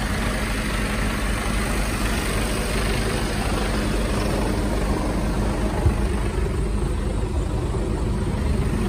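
Mercedes-Benz Actros 2553L's straight-six diesel engine idling steadily, with one light knock about six seconds in.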